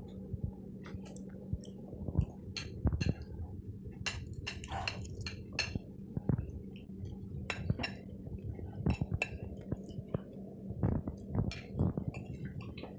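Irregular light clinks and taps of plates, glass bowls and cutlery on a table, scattered throughout, over a steady low hum.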